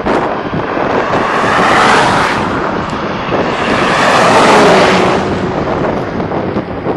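Wind rushing over the microphone while riding along a highway, with motor vehicles passing close by. The noise swells twice, about two seconds in and again, loudest, about four and a half seconds in as a truck goes past.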